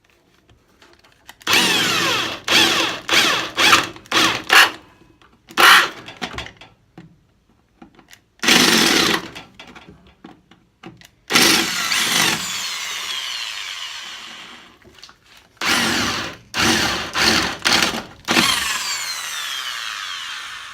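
Power drill cutting a large hole through a car's firewall, run in a series of short bursts and then a few longer runs. Its whine falls away each time the trigger is released.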